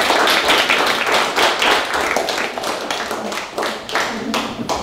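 Audience applauding, the dense clapping thinning out to a few scattered claps near the end.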